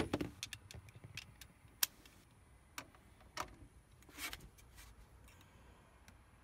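Metal clicks and clinks of a torque wrench and socket being handled and fitted onto a bolt: one sharp click at the start, then scattered lighter clicks, with a small cluster about four seconds in.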